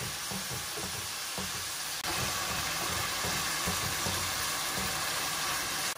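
Ground pork sizzling in hot oil in a frying pan, with a wooden spatula scraping and pushing the meat about to break it apart. The sizzle gets louder suddenly about two seconds in.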